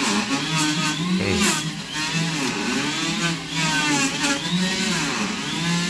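A small petrol engine running loudly, its pitch rising and falling over and over as it revs up and down.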